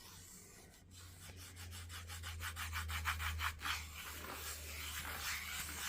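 Play sand being rubbed and scraped with a fingertip, a dry rasping, with a quick run of regular strokes at about six a second in the middle.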